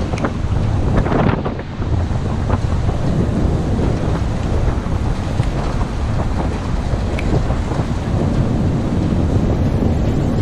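Wind buffeting the microphone: a loud, steady rumbling noise.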